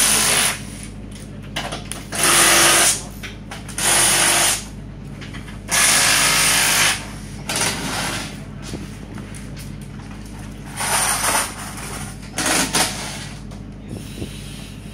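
Power tool run in short bursts, about six of them, each half a second to a second long, over a steady low hum.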